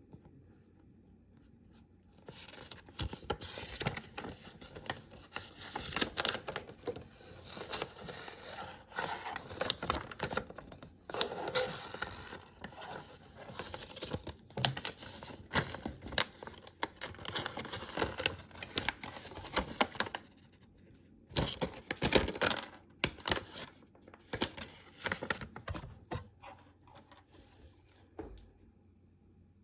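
Packaging being torn open, scratched and crinkled by hand in irregular bursts. The sound breaks off briefly about two-thirds of the way in, then comes back as a short, louder flurry that dies away near the end.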